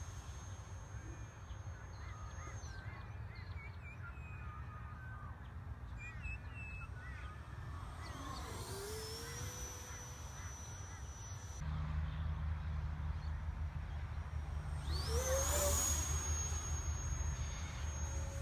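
Viper 70mm electric ducted fan RC jet in flight: a high fan whine that drops away near the start, then sweeps in pitch as the jet makes fast passes, about halfway in and again near the end. Wind rumble on the microphone underneath, heavier in the second half.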